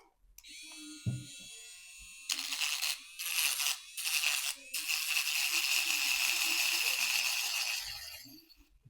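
Small 3.6 V cordless rotary tool whining as it spins freely. A couple of seconds in, its bit is pressed into wood and grinds through it, first in a few short passes and then in one long steady cut, stopping shortly before the end.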